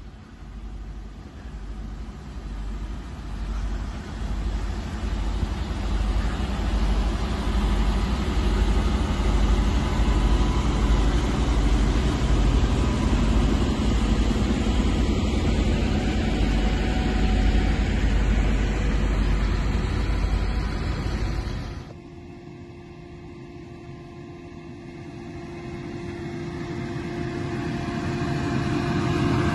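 Low, steady rumble of heavy truck engines, building over the first several seconds. After an abrupt change about three-quarters of the way through, a tanker semi-trailer approaches over a wet, slushy road and gets steadily louder.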